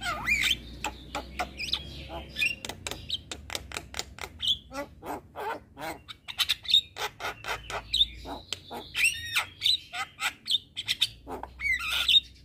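Javan myna (jalak kebo) singing a fast, unbroken song of sharp clicks mixed with whistled notes that glide up and down, and harsh squawks.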